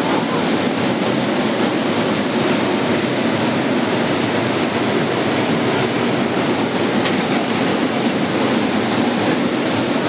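Steady loud rushing of fast-flowing water, an even roar that does not change.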